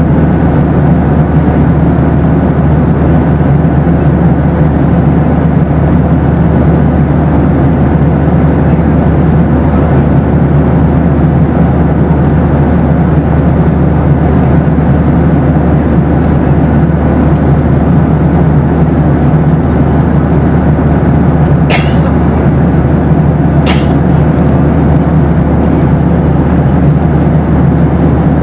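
Steady cabin drone of a Boeing 737 in flight: a loud, even rumble of engines and airflow with a faint steady hum above it. Two brief clicks, about two seconds apart, come in late on.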